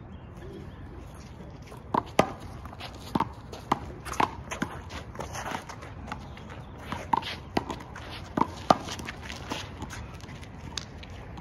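Handball rally on a concrete court: a rubber handball is slapped by hand and smacks off the wall and court floor in a string of sharp, irregular smacks, with sneaker footsteps scuffing between them. The loudest smacks come about two seconds in and again near nine seconds.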